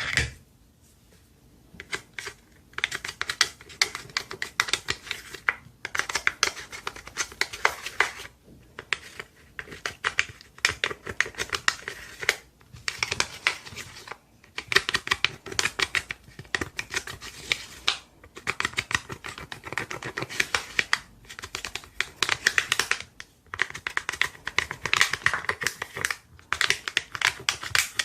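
Slime being squished and stretched by hand during mixing, giving dense sticky crackling and popping in bouts of a few seconds with brief pauses between.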